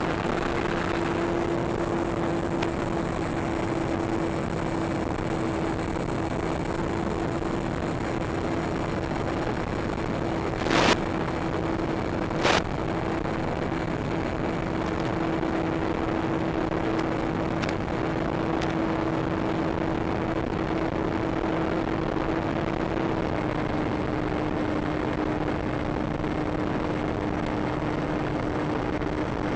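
Onboard sound of a HobbyKing TL2000 RC plane's electric motor and propeller running at steady high throttle through takeoff and climb: a steady hum over a constant rush of noise. The pitch drops a little about 23 seconds in as the throttle eases. Two brief loud bursts of noise come at about 11 and 12.5 seconds.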